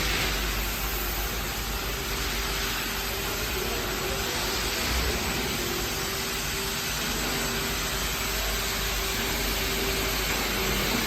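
Machinery running steadily: an even hissing noise with a faint hum that comes and goes.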